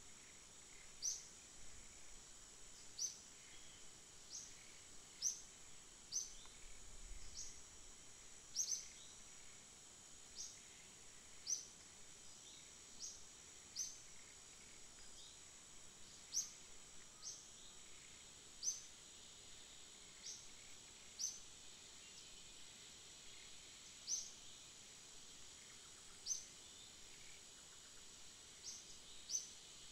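Outdoor insect drone, a steady high-pitched hum, with a bird's short, high chirp repeating every one to two seconds.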